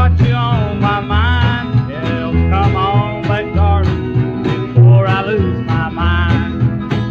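Country song played from a mono 45 rpm single: a band with a steady bass line on the beat and a melody that slides between notes.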